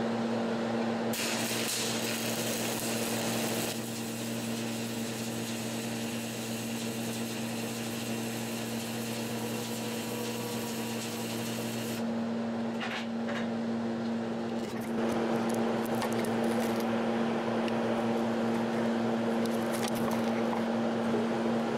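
Stick (arc) welding with a 1/8-inch 7018 electrode at about 105–108 amps: the arc strikes about a second in and crackles and hisses steadily over the welder's constant hum, then breaks off suddenly about twelve seconds in. After that come a few clicks and some handling noise while the welder keeps humming.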